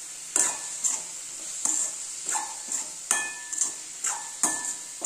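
Perforated metal spoon scraping and knocking against a metal pan as mini idlis are tossed in masala, an uneven stroke every half second or so, over a faint steady frying sizzle.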